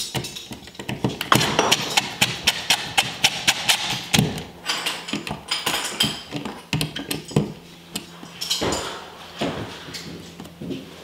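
Cordless DeWalt impact driver driving screws into a wall electrical box: a fast run of sharp clicks and knocks in the first half, then quieter scattered knocks.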